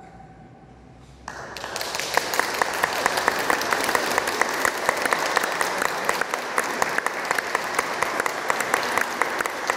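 The choir's final chord dies away in the chapel's reverberation. About a second in, the audience breaks into steady applause that carries on.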